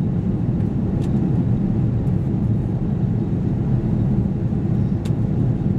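Steady cabin noise inside an Airbus A330-300 airliner in flight: the jet engines and rushing air give a constant low rumble. Two faint clicks come through, about one second in and about five seconds in.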